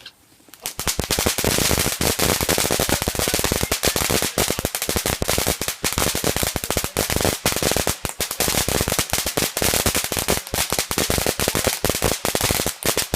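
A ground firework going off in a rapid, unbroken run of sharp crackling bangs, many per second, starting under a second in and going on throughout.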